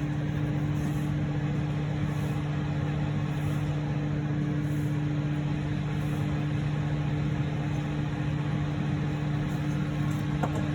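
Steady machine hum with a constant low drone, unchanging throughout.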